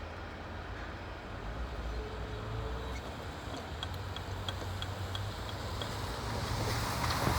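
Freight train rumbling past at the tail of its run, with a short run of light, evenly spaced ticks, about three a second, midway through.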